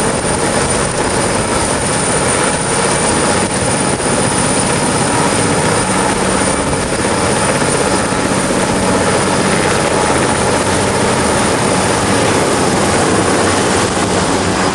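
Sikorsky AirCrane heavy-lift helicopter running, a loud steady rotor and turbine noise with a thin high whine held over it.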